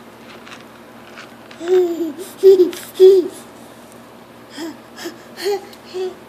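Toddler making short, high-pitched vocal sounds: three loud ones about two seconds in, then four softer ones.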